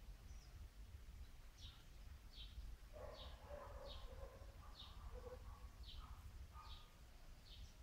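A bird outdoors repeating one short, high chirp about once a second, faint. Fainter, lower tones join in the middle.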